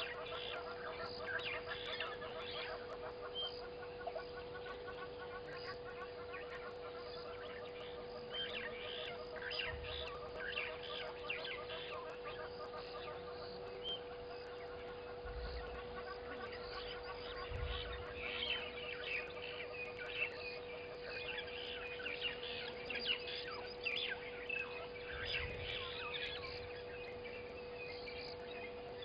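Outdoor bird chorus: many short calls and chirps, thickest in the second half, over a steady faint hum.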